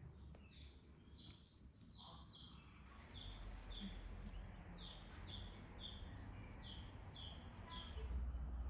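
A small bird chirping over and over, short falling chirps at about two a second, with a faint low rumble underneath that grows louder near the end.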